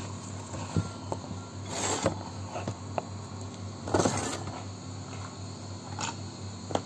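Steady electrical hum from bar equipment, with a few light knocks of glasses on a steel counter. Two short rustling bursts of handling noise come about two and four seconds in.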